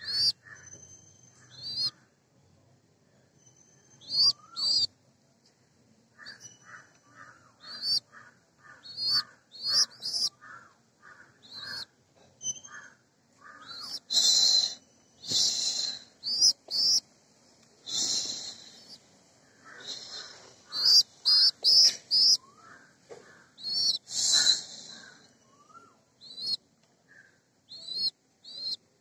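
Racing pigeon squabs peeping: many short, high, squeaky chirps, some in quick runs, busiest and loudest around the middle.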